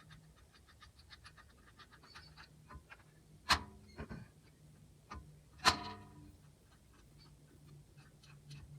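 Tools at work on a front brake caliper: a run of light metallic ticks, then two loud metal clanks that ring on briefly, about two seconds apart, as the caliper is unbolted.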